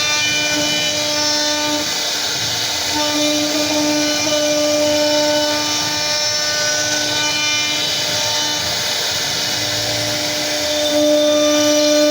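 CNC router spindle running with its bit cutting wood: a steady whine over constant cutting noise, the whine dropping out and returning a few times.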